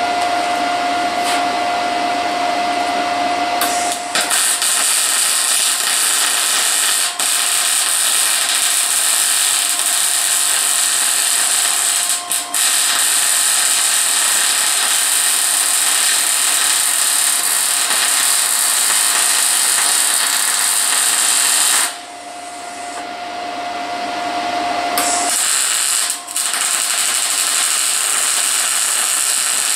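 Arc welding on the steel frame: the steady hiss of the welding arc starts about four seconds in, has a few brief breaks, stops for about three seconds a little after twenty seconds, then starts again.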